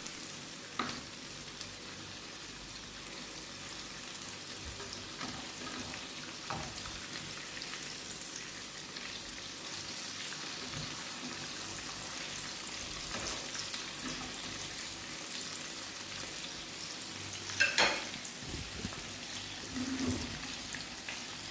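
Flour-and-egg coated chicken strips frying in hot cooking oil: a steady sizzle with small crackles, the strips nearly cooked. One brief, sharper sound stands out about eighteen seconds in.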